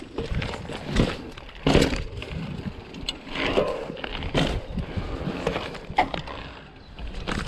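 Mountain bike rolling over rough ground: irregular knocks and crunches from the tyres and frame over a low rumble.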